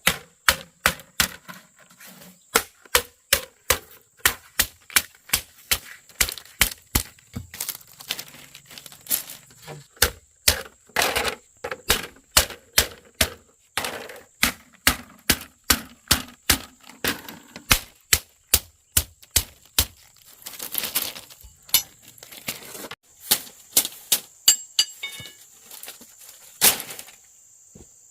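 Repeated sharp chopping strokes, about two or three a second, with short pauses in between.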